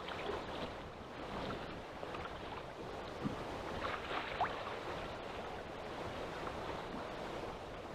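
Steady wind and rough, choppy water washing around a small fishing boat, with a few faint clicks and knocks and a brief squeak about four and a half seconds in.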